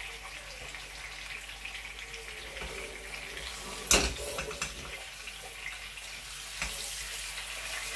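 Whole chicken frying slowly in hot oil in a pan, a steady sizzle. About four seconds in there is a sharp knock as the pan is taken by its handle and moved on the gas burner, and a smaller knock follows a couple of seconds later.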